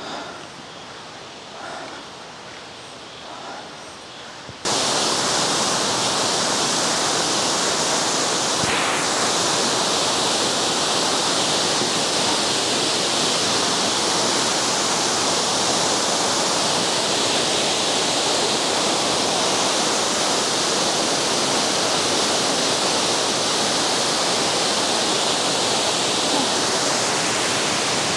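A 60 m mountain waterfall pouring down, a loud, steady rushing noise that comes in suddenly about five seconds in, after a much quieter stretch of trail ambience.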